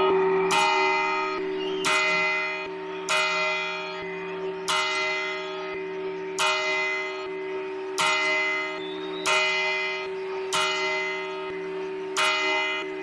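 Clock bell striking the twelve midnight chimes that ring in the New Year: nine strokes about a second and a half apart, each ringing on and fading over a lingering hum.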